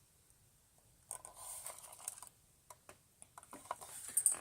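Plastic clicks, taps and rustles of a vacuum's handheld turbo brush attachment being handled and turned over, with a short rustle about a second in and a quick cluster of sharper clicks near the end.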